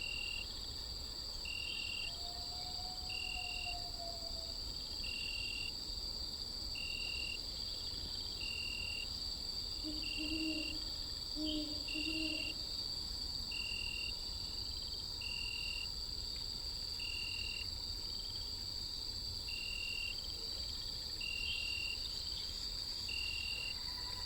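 Insect chorus: a steady high-pitched buzz, with a separate short chirp repeating about every second and a half.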